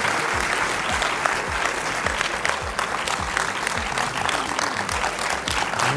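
Large audience applauding in a cinema hall: a dense, steady patter of many hands clapping.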